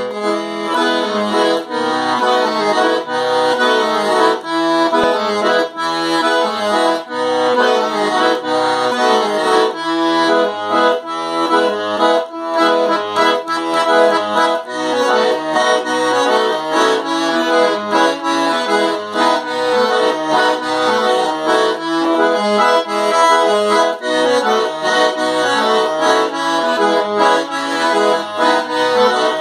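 Italian Gigante 120-bass reduced-size piano accordion played without pause: a melody on the right-hand keyboard over a steady, rhythmic bass-and-chord accompaniment from the left-hand buttons.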